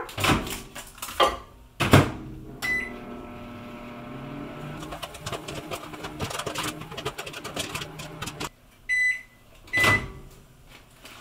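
Emerson microwave oven: the door is knocked shut and a keypad beep starts it. The oven then hums steadily while microwave popcorn pops inside the bag, the pops coming quicker after a few seconds. The hum cuts off, the oven beeps at the end of the cycle, and the door is pulled open with a clunk.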